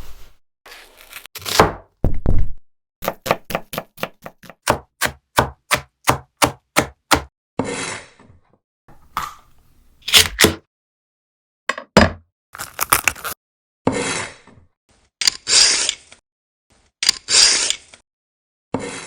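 Food-preparation sounds: a quick, even run of knife chops on a cutting board, about four a second, among separate knocks and thuds, with several short hissing, scraping noises in the second half.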